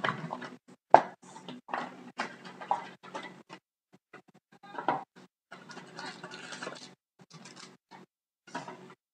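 Cardboard trading-card box and foil-wrapped pack being handled: irregular rustling and scraping as the box is opened and the pack taken out, with one sharp click about a second in.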